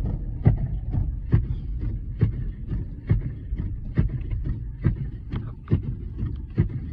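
Inside a moving vehicle: a steady low road rumble with a regular thump about twice a second.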